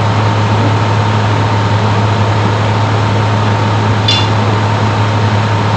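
Steady loud hum with an even rushing noise underneath, unchanging throughout; a brief light clink about four seconds in.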